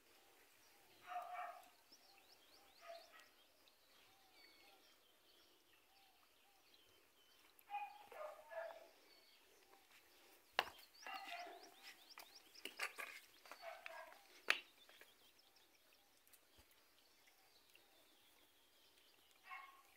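Distant animal calls in short clustered bursts, with faint small-bird chirps and two sharp clicks about halfway through.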